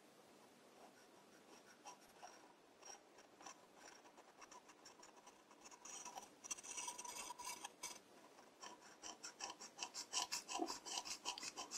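Pocket-knife blade hand-scraping the inside of a bronze lathe spindle bearing to take down a high spot: faint, short scratchy strokes, a few scattered at first, then coming thick and fast from about six seconds in.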